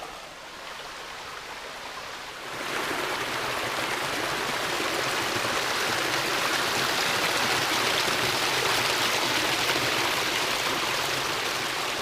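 A rainforest stream's flowing water, a steady rushing that turns suddenly much louder about two and a half seconds in.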